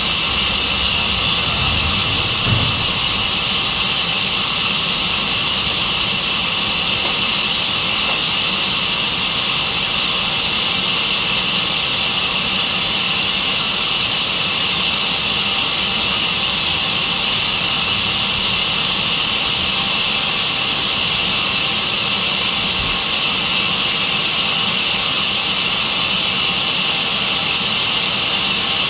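Sawmill band saw running steadily, a loud, even high-pitched rushing noise with no let-up. There is a single low knock about two and a half seconds in.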